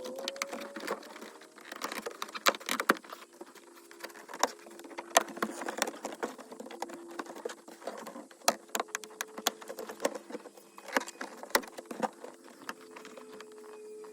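Irregular clicks, taps and light knocks of hands at work on the truck cab's back-wall trim and sound-deadening material, over a faint steady hum.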